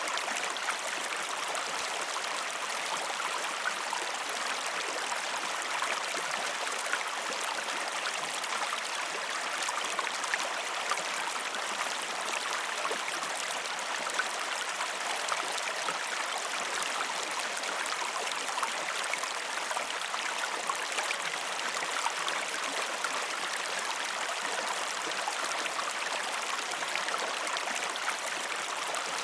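River water flowing over rocks: a steady rush with many small sharp splashes and trickles in it.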